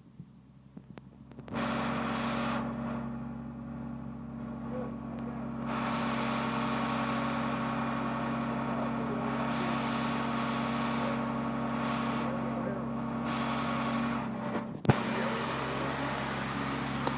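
A crane truck's engine steps up about a second and a half in and runs steadily under load, with a hissing rush that swells and fades above the engine note. A single sharp knock comes near the end.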